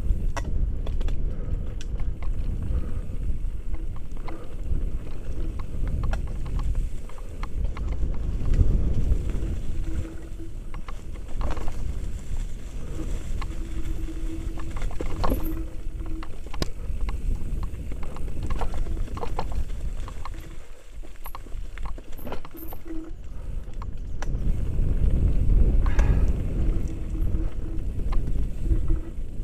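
Wind rushing over a helmet-mounted action camera's microphone while a mountain bike rattles down a rough dirt and leaf-covered trail, with tyre noise and frequent knocks and clicks from bumps. A short steady hum comes and goes several times.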